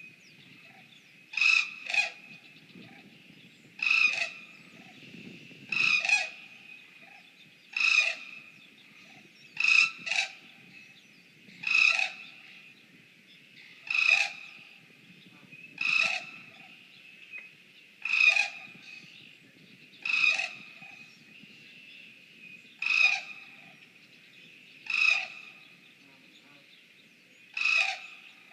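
An animal call repeated about once every two seconds, a few of them given as quick doubles, with a faint steady high tone underneath.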